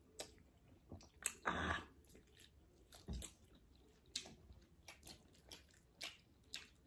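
Close-miked mouth sounds of someone eating chicken wings: irregular crunches and moist chewing, with a louder bite about one and a half seconds in and a dull low thump about three seconds in.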